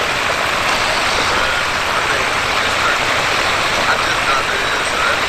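Outdoor propane turkey fryer running: a steady, loud rush from the gas burner under the pot, mixed with hot oil bubbling and sizzling around a freshly dropped-in turkey.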